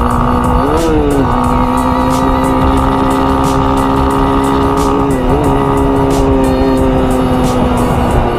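Motorcycle engine running at a steady pitch, rising and falling briefly about a second in, with wind rushing over the camera's microphone. Music with a steady beat plays over it.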